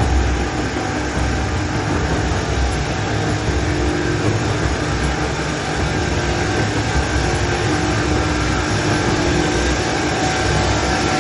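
Rail-grinding truck working along the rail: its grinding stones running on the steel make a steady, dense grinding noise with a few held tones, grinding out corrugation from the rail head.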